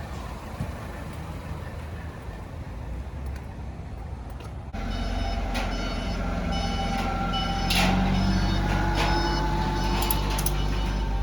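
A vehicle engine running with a low steady rumble. About five seconds in the level jumps suddenly and background music with held notes comes in over the vehicle noise.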